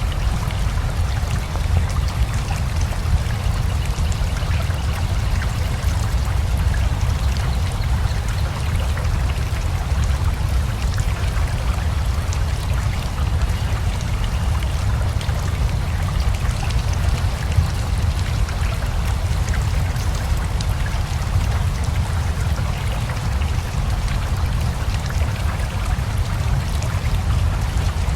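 Steady rain together with a rushing river: a constant wash of flowing water, strongest in the low rumble, with a fine patter of raindrops over it.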